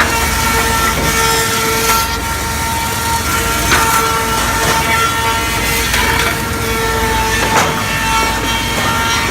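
Double-sided wood planer running with a steady whine, with a few short cracks as boards pass through the cutters.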